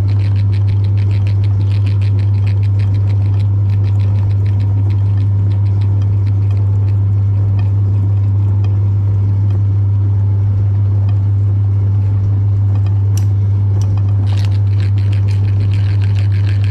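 Electric meat grinder running: a steady, loud motor hum with a fast, even rattle that eases off in the middle and comes back stronger near the end.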